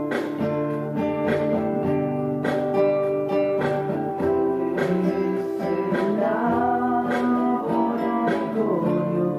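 Music: a strummed acoustic guitar, with a voice singing a melody over it in the second half.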